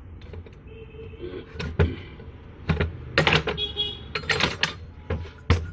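Irregular metallic clicks and knocks from hand work on a reassembled washing machine motor, with two brief squeaky ringing tones, over a low steady hum.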